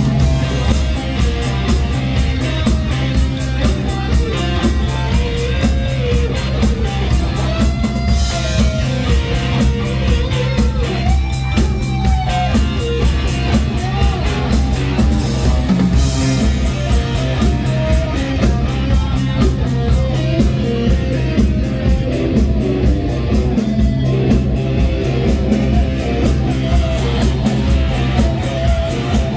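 Live rock band playing: electric guitars over a steady drum beat and heavy bass.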